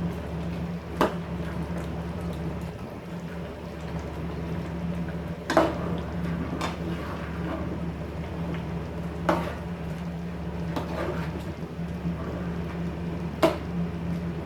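A pot of mung bean stew with spinach simmering on the stove, over a steady low hum, with about five sharp knocks spread through it, like a utensil against the pot.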